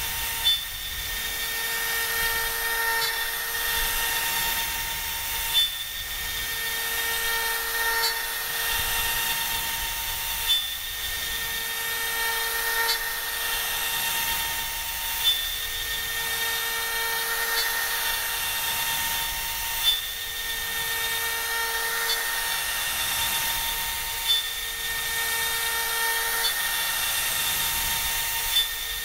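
CNC router spindle with a small end mill cutting a profile groove into a wooden board: a steady high whine, with brief louder spikes about every five seconds.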